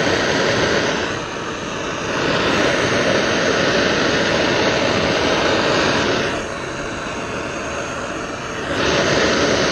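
Hand torch flame roaring steadily while heating a copper battery-cable lug to melt solder into it, the rush easing off twice for a couple of seconds and coming back.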